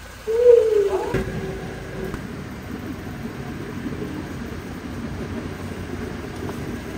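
A bicycle rolling over brick pavers: a steady low rumble and rattle of the tyres and frame. It opens with a short falling squeal and a knock about a second in.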